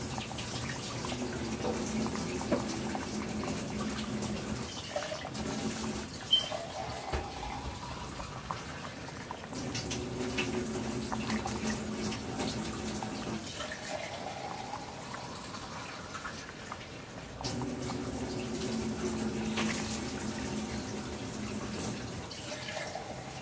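Cold water poured from a jug into a large steel pot of boiling rice, in three long pours several seconds apart, each ending in a short higher-pitched gurgle. The water is added to cool the rice and stop it cooking just before it is strained.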